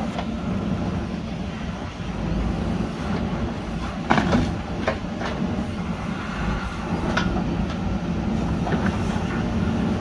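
JCB 3DX backhoe loader's diesel engine running steadily as the backhoe arm digs soil. A few sharp knocks from the bucket and arm come on top of it, the loudest about four seconds in.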